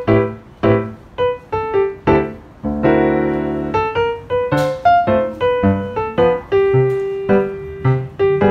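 Background piano music: a brisk, steady run of struck notes, with a fuller chord held about three seconds in.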